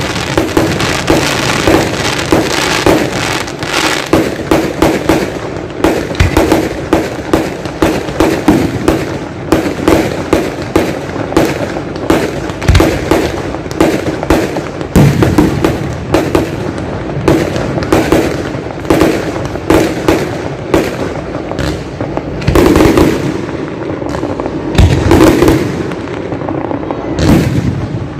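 Aerial fireworks going off in rapid succession: a dense run of sharp bangs and crackles, several a second, with a few louder booms near the end.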